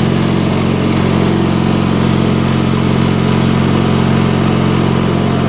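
Terramite T5 loader-backhoe's small gasoline engine running steadily under the operator's control, while the loader handle is pushed forward to press the bucket down and raise the front wheels off the ground.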